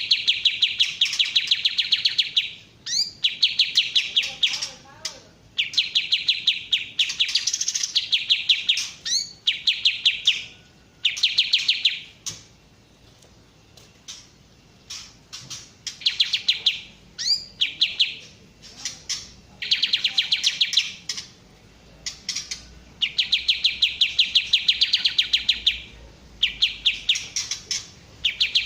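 Kapas tembak songbird singing: bursts of fast, evenly repeated high chattering notes, each burst one to two seconds long, repeated over and over with short pauses between.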